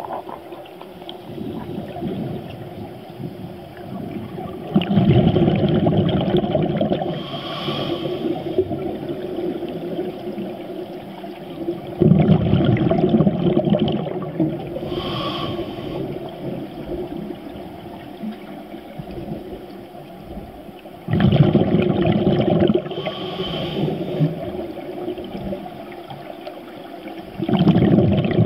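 Scuba diver breathing through a regulator underwater. Four loud rushes of exhaled bubbles come about every seven to eight seconds, and a shorter hiss from the regulator on each inhale falls between them.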